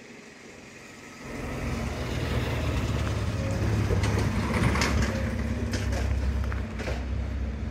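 Low rumble of a heavy vehicle that comes in suddenly about a second in and stays, with a few sharp clacks around the middle.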